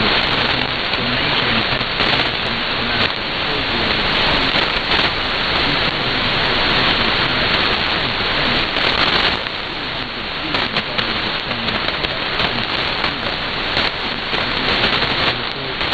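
Shortwave static from an SDR receiver tuned to 6160 kHz in synchronous AM: a dense hiss with crackles, cut off above about 4.5 kHz by the receiver's filter, with no clear station audio. The hiss eases a little about nine seconds in, and the crackles stand out more after that.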